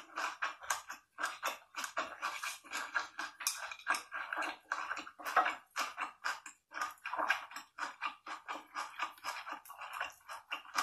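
Close-miked ASMR mukbang eating sounds: a person chewing and biting food with mudfish, a dense run of irregular wet clicks and smacks.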